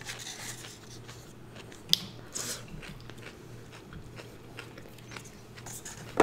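A person chewing and biting food close to the microphone: soft mouth sounds with scattered small crunches and clicks, the sharpest about two seconds in.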